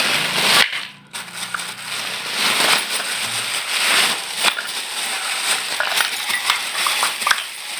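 Plastic bag rustling as it is handled and tipped out, with dry lumps of multani mitti (fuller's earth) clattering and crunching onto a hard floor in many small clicks.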